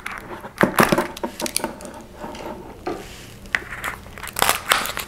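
A small paperboard product box and its packaging being opened by hand: irregular clusters of scrapes, taps and crinkles, busiest about a second in and again near the end.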